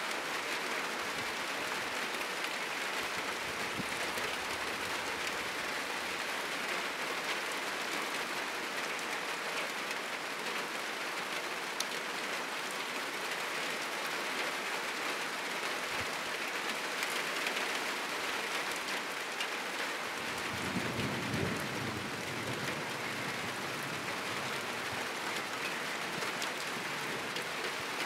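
Heavy rain falling steadily on a roof and the surrounding trees, an even hiss throughout. About twenty seconds in, a low rumble of thunder swells for a couple of seconds beneath the rain.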